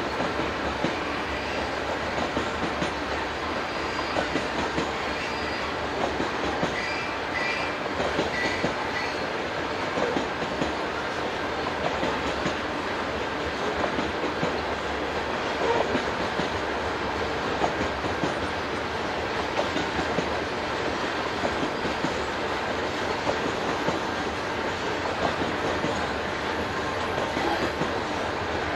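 Freight train of loaded grain covered hoppers rolling past, steel wheels clicking over the rail joints in a steady rumbling run. A faint high wheel squeal comes in about a quarter of the way through.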